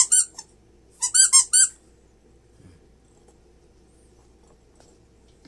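Squeaky rubber toy ball squeaking under a foot: a few quick squeaks at the start, then a run of about four more a second later.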